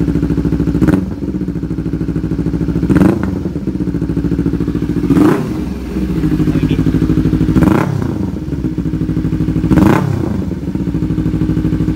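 Kawasaki Ninja 300 parallel-twin engine idling through an SC Project slip-on exhaust with its dB-killer baffle fitted, blipped five times, about every two seconds, each rev rising and dropping back to idle. With the baffle in, the exhaust note is toned down somewhat.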